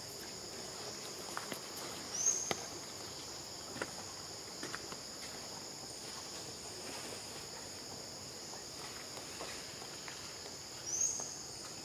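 Steady chorus of insects, a continuous high buzz with two pitch bands. Two short rising chirps stand out above it, about two seconds in and again near the end, with scattered faint clicks in between.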